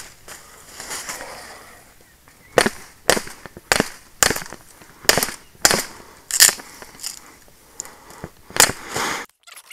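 Sharp chops of a small hand blade into a fresh green branch, knocking off side shoots. There are about nine strikes at uneven spacing, some in quick pairs. The sound cuts off suddenly near the end.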